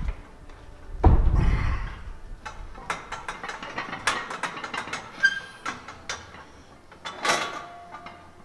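Weight-room clatter: a dull thud about a second in, then a run of light metallic clicks and clinks from barbell and rack equipment.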